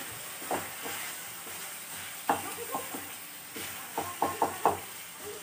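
Wooden spatula stirring and scraping a thick onion-masala paste frying in oil in a pan, over a steady faint sizzle, with irregular scrapes and taps of the spatula, several in quick succession about four seconds in.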